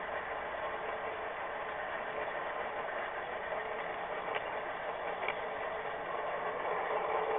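HO scale model train running along the track, heard from on board: a steady mechanical whirr and rattle of the wheels and drive, with a couple of faint clicks near the middle.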